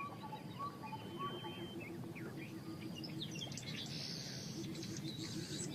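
Outdoor wetland ambience: scattered bird chirps and short calls over a steady background hiss.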